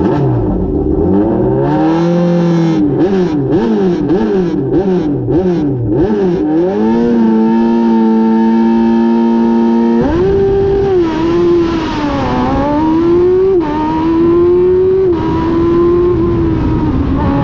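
Single-seater race car engine at the start line: blipped repeatedly, its pitch rising and falling about twice a second, then held at steady high revs for a few seconds. About ten seconds in the car launches and accelerates hard, the pitch climbing and dropping back with each upshift, three times.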